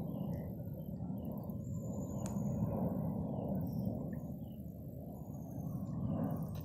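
Outdoor ambience: a steady low rumble, with faint high chirps scattered through it and a single click about two seconds in.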